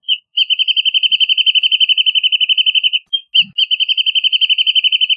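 Wrentit singing: a couple of short lead-in notes, then a rapid, even trill of clear whistled notes lasting nearly three seconds. After a brief pause it starts again with two more lead-in notes and a second trill at the same pitch.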